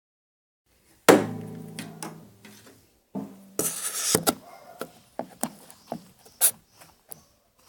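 A chord sounded on a musical instrument about a second in and left ringing, then a second chord and a scraping rush a little after three seconds. A string of short, light knocks and taps follows.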